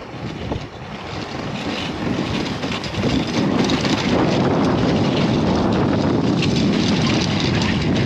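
Dog sled running over hard, crusted snow and ice behind a husky team, its runners scraping and rattling in a steady rumble that gets louder about three seconds in.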